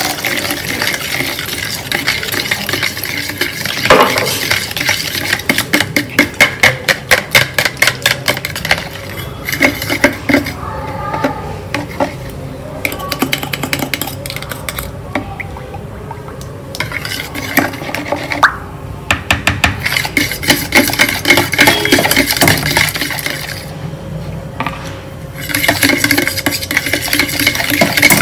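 Metal fork whisking a runny egg-and-milk mixture in a plastic bowl: fast runs of clicks as the tines strike the bowl, in several bursts with short pauses between.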